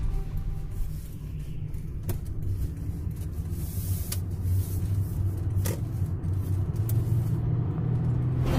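Steady low rumble of a car driving, heard from inside the cabin, with a few short clicks about two, four and six seconds in.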